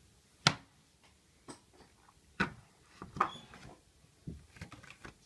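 Handling taps and clicks on a wooden desk as a small screwdriver and an iPhone are handled and set down. There are a handful of separate sharp knocks, the loudest about half a second in, then a quick run of small ticks near the end.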